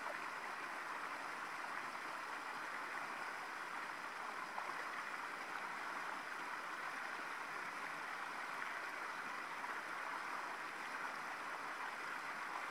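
A steady, even rushing noise like running water, with no breaks or rhythm.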